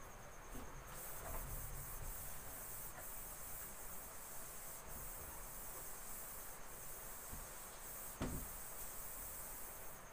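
Cloth wiping a whiteboard: a faint, steady rubbing hiss, with one light knock about eight seconds in.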